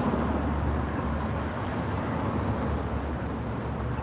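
Steady low rumble of street traffic, cars running on the road nearby.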